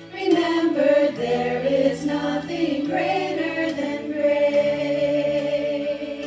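A small group of women singing together in harmony through microphones; the voices come back in loudly about a third of a second in after a brief dip and carry on with held notes.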